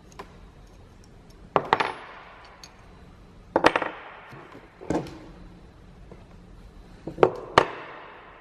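Sharp metallic clacks and clinks, six in all: two close together, then single ones, then two more near the end, each ringing briefly.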